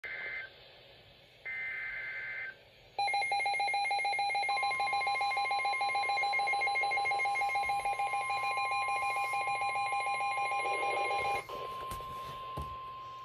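Emergency Alert System weather alert: two short bursts of SAME digital header tones, a warbling electronic screech. From about 3 seconds a loud, rapidly pulsing alarm sounds, joined a second later by the steady single-pitch NOAA Weather Radio warning alarm tone. The pulsing alarm cuts off suddenly near 11 seconds, a few clicks follow, and the steady alert tone carries on alone.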